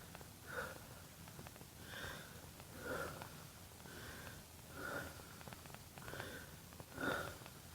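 A person breathing heavily close to the microphone, in and out about once a second, with a few faint clicks between breaths.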